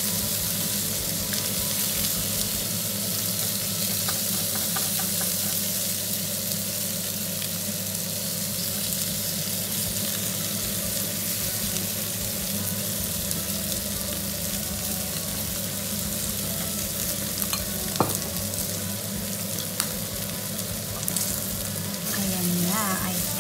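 Pork intestine (isaw) barbecue skewers sizzling steadily on a hot stove while being basted with annatto oil, with a single sharp tick about 18 seconds in.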